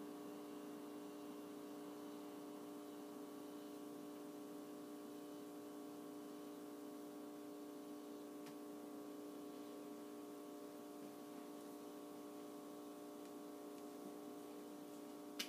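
Faint steady hum made of several fixed tones, with one soft click about halfway through.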